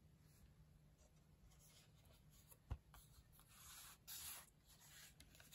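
Faint rubbing and sliding of a cardboard LP record jacket being handled, with one soft knock a little under three seconds in.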